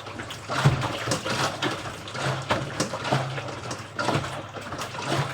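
Water and clothes sloshing in the drum of a hand-cranked washing machine as it is turned during a rinse, with a knock or click about twice a second.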